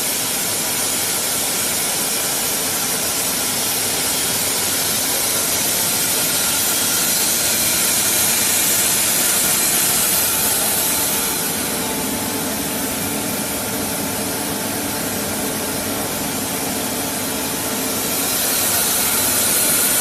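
Wire-and-cable production machine running on test: a loud, steady whir and hiss, strongest in the high range. It eases a little about halfway through and grows louder again near the end.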